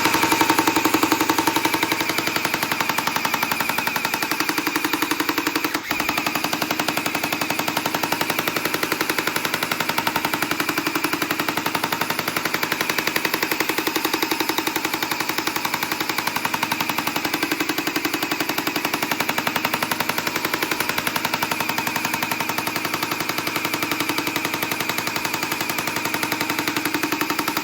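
Battery-powered toy gun firing on automatic, a fast continuous machine-gun rattle with a brief break about six seconds in.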